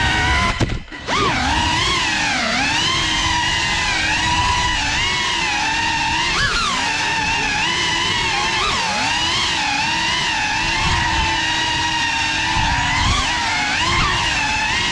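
FPV quadcopter's brushless motors and propellers whining close up, the pitch wavering up and down constantly with the throttle; the motors briefly drop away and spool back up about a second in.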